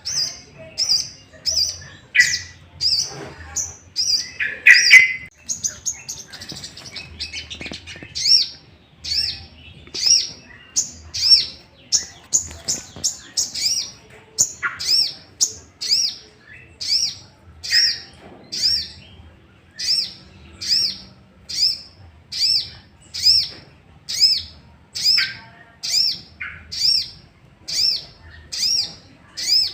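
Sogok ontong (sogon) bird giving a long series of short, high, downward-sweeping call notes, a little more than one a second, with louder, harsher notes in a jumbled stretch near the start. It is an agitated, challenging call, the kind used as a lure to provoke other sogon birds into calling back.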